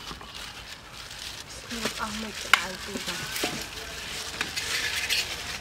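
Wet, crackling squelch of gloved hands rubbing sauce marinade over a whole crocodile's scaly hide in a metal basin, with one sharp click about halfway through.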